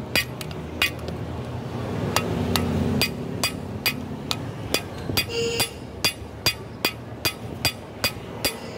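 Hand hammer beating red-hot steel rebar on a steel anvil, each blow with a bright metallic ring. After a couple of blows and a short pause, it settles a few seconds in into a steady rhythm of about two blows a second as the hot bar is drawn out.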